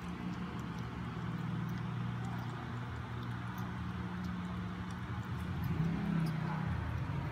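A kitten lapping water from a bowl, heard as faint, quick, scattered clicks over a steady low hum.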